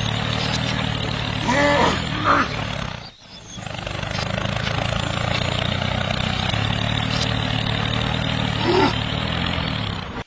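Steady engine drone for a miniature tractor at work, with a dense rough hiss over it. The drone drops out briefly about three seconds in. Short pitched, gliding calls sound near two seconds and again near nine seconds.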